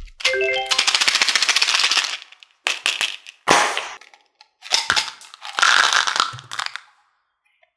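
Small hard-shelled chocolate candies rattling quickly inside a plastic candy tube and pouring out in several bursts. A short rising chime sounds near the start.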